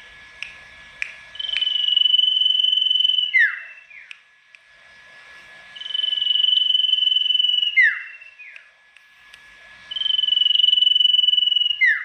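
Caged sirtu songbird singing loudly: three long, steady high whistles, each held for about a second and a half and ending in quick downward-slurred notes, repeating about every four seconds.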